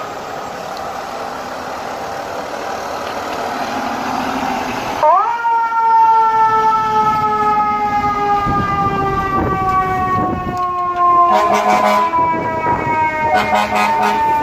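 FDNY fire engine pulling out, its diesel engine running and building for about five seconds. Then its mechanical siren winds up sharply and coasts down in a long, slowly falling wail, with two short air horn blasts near the end.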